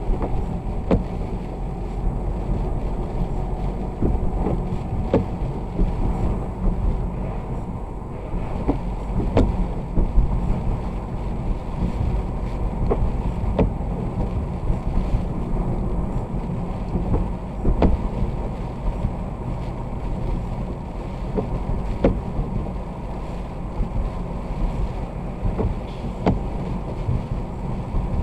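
Vehicle driving on a wet road: a steady low rumble of road and wind noise, with scattered short ticks every second or few.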